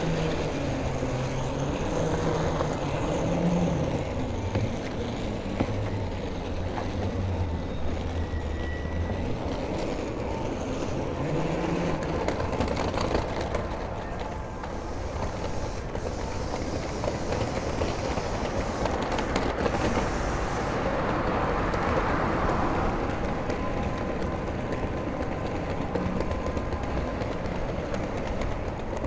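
Steady city-street din of road traffic and trains running on the elevated railway line, with a vehicle's low engine note changing pitch in steps during the first several seconds.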